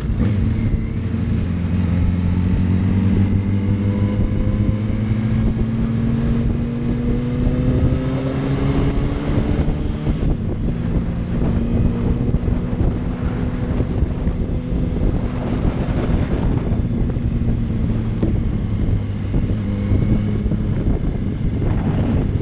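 Yamaha R1 sport bike's inline-four engine running under way, its pitch rising slowly for the first several seconds as the bike picks up speed, then holding roughly steady. Wind rushes over the microphone throughout.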